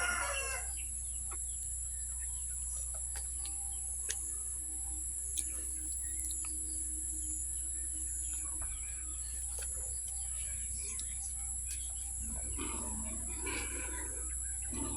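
Chickens clucking and small birds chirping over a steady high-pitched insect drone, with a louder stretch of calls near the end.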